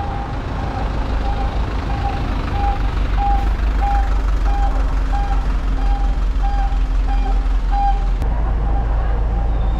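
A crane truck's engine running, with its warning beeper sounding a steady series of short beeps, about three every two seconds. The beeping stops about eight seconds in.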